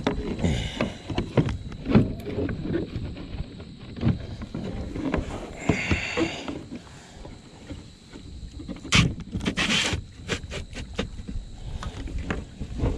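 Irregular knocks, clicks and scuffs of handling in a plastic fishing kayak as a northern pike, held in a plastic lip grip, is laid on a measuring board, with a couple of louder scuffs near the end.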